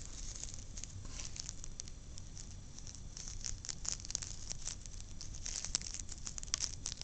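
Faint crackling and scattered light ticks of small seeds being sprinkled by hand over cotton balls in a box, the ticks coming thicker in the second half.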